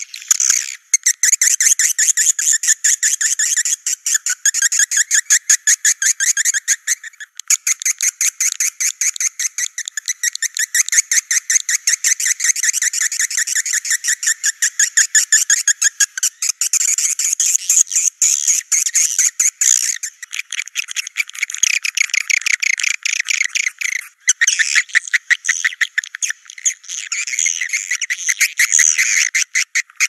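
Edible-nest swiftlet lure call: a dense, continuous twittering chatter of rapid high chirps, with brief breaks every few seconds. It is the kind of recording played at swiftlet houses to draw the birds in to nest.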